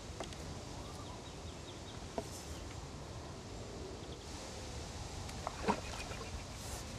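Steady outdoor background noise with a few short clicks or knocks; the loudest comes near the end.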